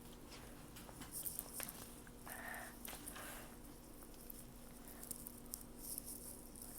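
Faint rustling and a few light clicks over a low steady hum, with a slightly louder soft rustle between about two and three seconds in.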